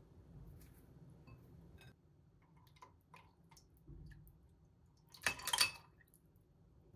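Soft kitchen handling sounds while a cold noodle bowl is filled with soup: a few light clicks and taps against the bowl and jar, then a short, louder rushing noise lasting about half a second, about five seconds in.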